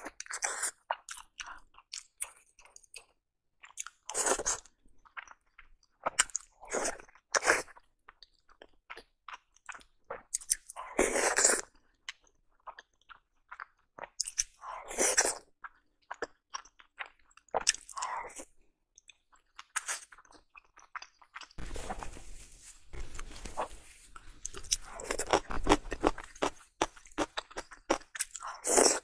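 Close-miked eating of soft dumplings in chili oil: bites and wet chewing in short bursts a few seconds apart, running together into steadier chewing in the last several seconds.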